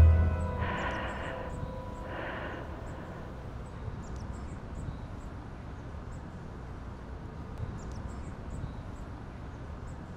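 The last chord of the plucked-string music rings out and fades at the start, leaving an outdoor ambience: a steady low rumble with faint, scattered high chirps, and two short brighter sounds about one and two seconds in.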